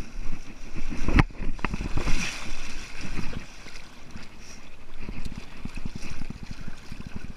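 Water splashing and sloshing right against the microphone as a bodyboard is kicked and paddled out across calm water, with two sharp knocks about a second in.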